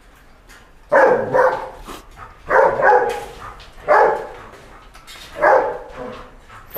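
A Belgian Malinois barking: about seven loud barks, two quick pairs followed by single barks spaced a second or more apart.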